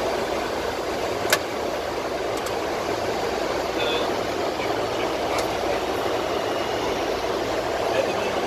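Steady cockpit noise of a Boeing 747-400 in flight, a constant rush of air and engine noise. A single sharp click comes about a second in, with a few fainter ticks later.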